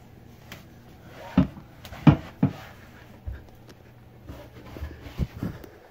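A series of dull knocks and thumps, about six of them, the loudest about two seconds in, over a steady low hum.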